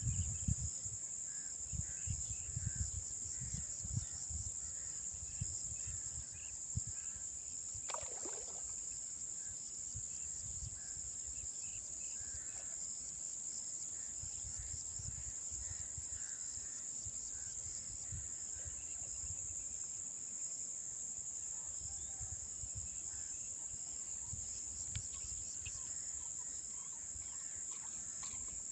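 Steady high-pitched chorus of insects calling without a break, with low rumbles and bumps of wind or handling noise on the microphone, most in the first few seconds.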